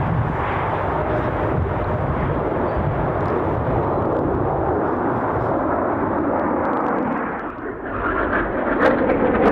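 Military jet flyover: the steady rushing roar of jet engines passing overhead, which dips briefly near the end.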